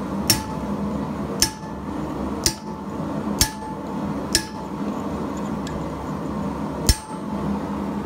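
Hand hammer striking a small punch held on red-hot steel on an anvil, stamping a random dot texture: six sharp metallic strikes about a second apart, the last after a longer pause. A steady hum runs underneath.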